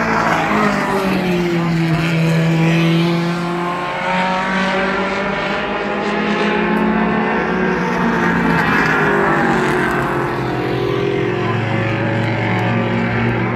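Several mini stock race cars running at speed around an oval track, their engines heard together. The engine pitch drops as cars pass about a second in and again around nine seconds in.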